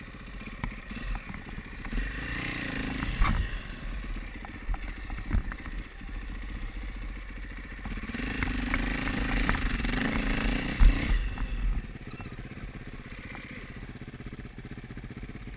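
Enduro motorcycle engine pulling at low revs up a steep snowy climb, with scattered knocks and clatter. It revs harder from about eight seconds in, then drops back sharply a few seconds later.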